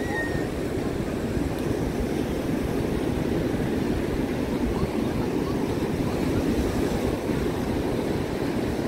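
Steady noise of ocean surf breaking on a sandy beach, with wind buffeting the microphone.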